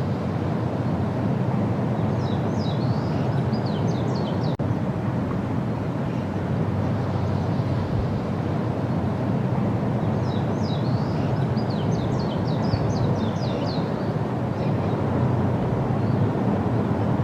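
A steady low outdoor rumble, with a songbird singing two phrases of quick, high, down-slurred notes, one a couple of seconds in and another about ten seconds in.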